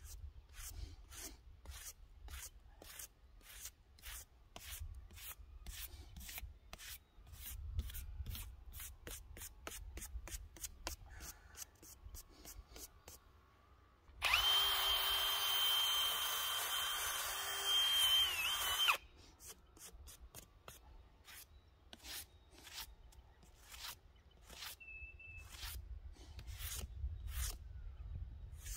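Hand scraping strokes, about two a second, cleaning packed wood debris off a chainsaw part. From about 14 to 19 seconds in, a much louder hiss with a steady high whine cuts in and stops abruptly, then the scraping resumes.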